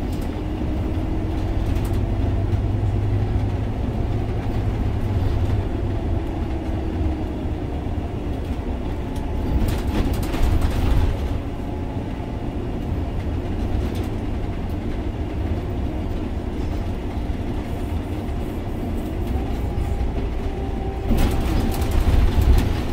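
Inside a Scania OmniLink three-axle city bus under way: steady low rumble of its diesel engine and tyres on the road, with louder stretches of clatter about ten seconds in and near the end.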